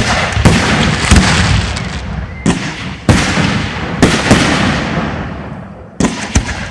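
Aerial fireworks bursting in quick succession: about nine sharp bangs, some in quick pairs, each trailing off in a long rolling rumble that runs into the next.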